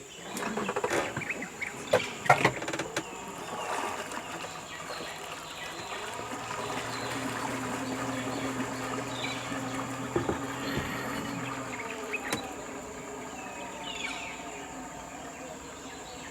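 Insects droning steadily with a constant high thin tone. A steady low buzz runs through the middle several seconds, and a few sharp clicks come in the first couple of seconds.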